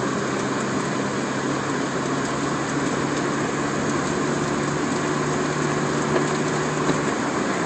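Steady road and engine noise inside a moving car's cabin: tyre rush with a low engine hum under it, the hum dropping away near the end.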